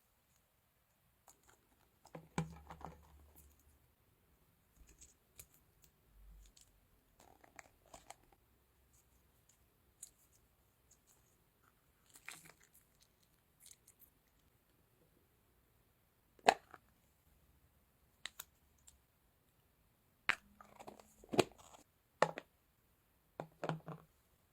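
Alien slime toy being cut open: scattered short clicks, crunches and soft squishing sounds with quiet gaps. The sharpest click comes about two-thirds of the way through, and a quick cluster follows near the end.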